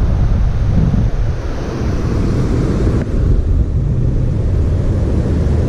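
Wind buffeting the microphone, a loud ragged low rumble with no clear tone.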